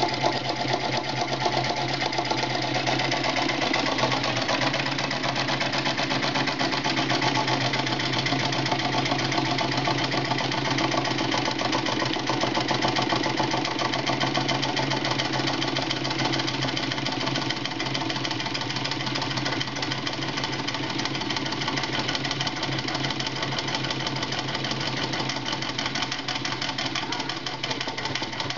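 Home-built gamma-type Stirling engine running on candle heat, its crank linkage and pistons making a fast, steady clatter over a steady low hum.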